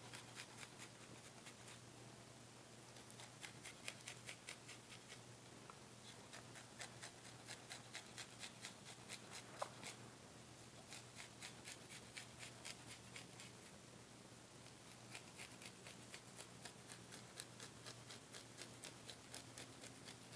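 Garlic clove rubbed on a small fine hand grater: faint runs of quick scraping strokes, several a second, broken by short pauses.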